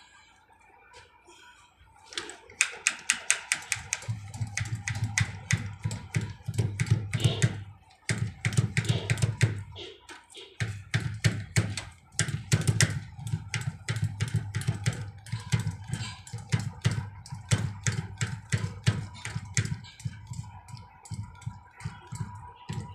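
Diesel fuel hand primer pump on a Mercedes-Benz Actros being worked by hand, rapid clicking strokes with a low thud, several a second, with two short breaks. It is priming fuel through a newly fitted injection pump until the primer turns stiff.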